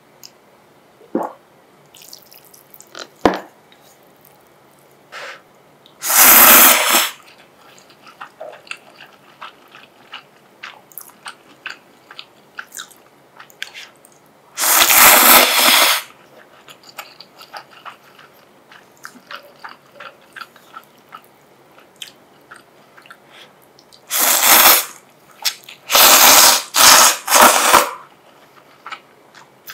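Noodle eating: loud slurps of instant ramen noodles and spicy broth, each about a second long, spaced well apart at first and then several in quick succession near the end. Soft chewing and small clicks of chopsticks and bowl come between them.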